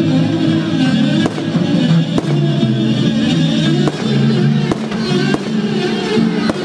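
Fireworks bursting in several sharp bangs about a second apart, over music playing through the display's loudspeakers.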